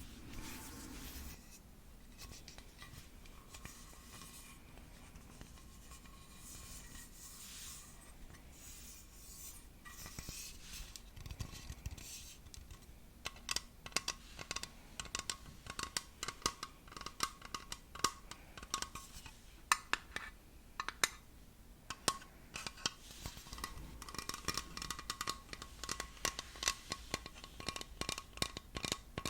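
ASMR tapping and scratching on a hard object: soft scratching and rubbing at first, then from about halfway through quick, light, irregular taps with a faint ringing tone.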